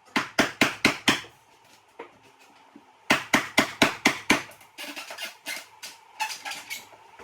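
Two quick runs of sharp knocks, about four a second, the second starting about three seconds in, followed by lighter, quicker tapping.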